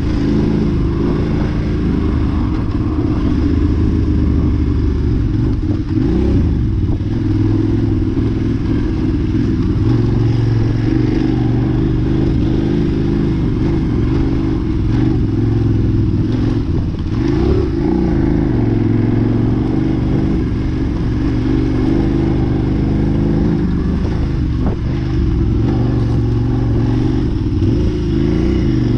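Motorcycle engine heard from on board while riding a sandy dirt trail, its pitch rising and falling with the throttle throughout, with a few knocks from the bike over bumps.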